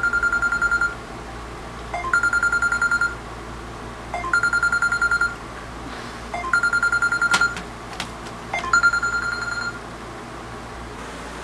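Smartphone alarm going off: five bursts of rapid high-pitched beeping, each about a second long and about two seconds apart, then it stops. A short knock sounds during the fourth burst.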